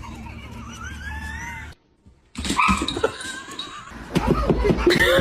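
Pet animal cries, with thin wavering calls rising and falling in pitch, across quick clip cuts and broken by a short silent gap about two seconds in. A loud low rumble joins about four seconds in.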